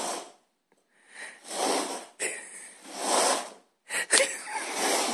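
Paper cups sliding and scraping across a tile floor as they are shuffled, in four or five short swishes, with a couple of sharp clicks about four seconds in as a cup is knocked or set down.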